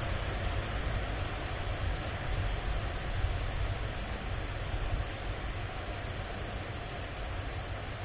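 Steady rain noise: an even hiss over a low rumble, without a break.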